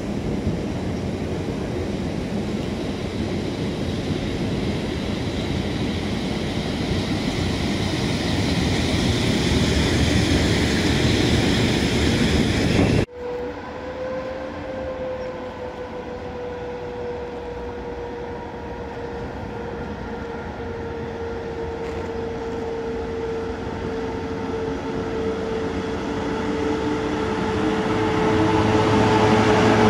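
EP07 electric locomotive approaching along the station track, its running rumble growing louder. After a cut partway through, the locomotive comes in hauling passenger coaches with a steady whine that falls slightly in pitch, growing louder as it draws level and passes.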